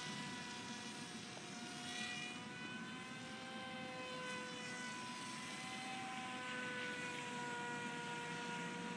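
Litehawk Swift radio-controlled amphibious plane in flight overhead: its motor and propeller give a steady whine of several pitched tones that drift slightly up and down in pitch.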